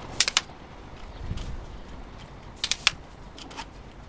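Fotopro carbon fibre tripod legs being collapsed: two quick clusters of sharp clacks as the leg sections are slid shut, one just after the start and another about two and a half seconds later.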